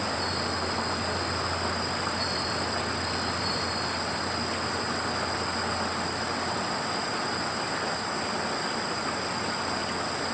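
Crickets and other field insects trilling steadily in two high-pitched tones, over a steady low hum.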